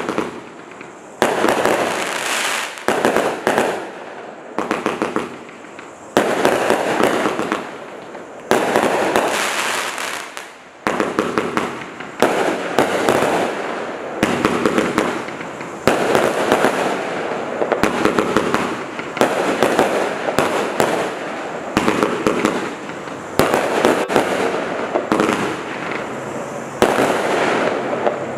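Black Cat Pyro Pandemonium 206-shot compound firework cake firing. Shot after shot goes off with a sharp report about every one to two seconds, each fading over about a second, with no let-up.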